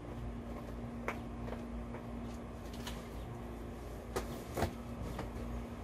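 A few light knocks and clicks of things being handled and moved in an SUV's cargo area, the sharpest two about four seconds in, over a steady low hum.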